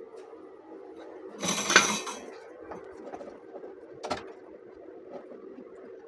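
Tools and wires being handled on a wooden workbench: a clattering rustle about one and a half seconds in, the loudest sound, and a short sharp click about four seconds in, over a steady low hum.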